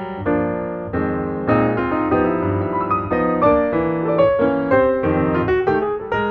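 Background piano music: a continuous flow of struck notes and chords.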